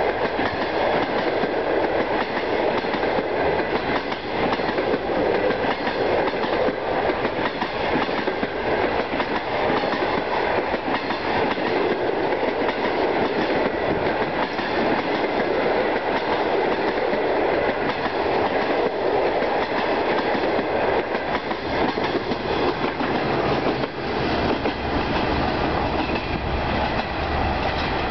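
Passenger train coaches rolling past close by, their steel wheels clattering steadily over the rail joints.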